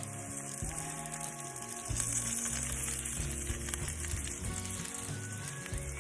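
Seasoned salmon fillets sizzling on a hot grill pan, a steady crackling hiss that grows louder about two seconds in.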